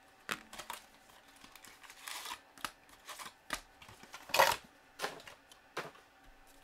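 A 2015-16 Upper Deck Trilogy hockey card box being handled and opened by hand: a run of clicks and taps from the cardboard box, with short rustling scrapes, the loudest about four and a half seconds in.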